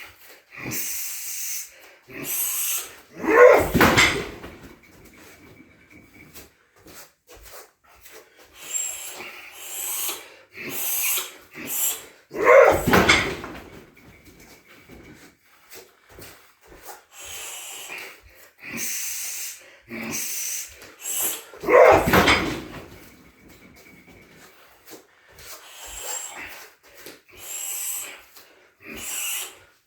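Heavy Muay Thai shin kicks thudding into a car tyre on a weighted boxing stand, three hits about nine seconds apart and a fourth right at the end. Between the kicks come the fighter's sharp hissing exhales and grunts.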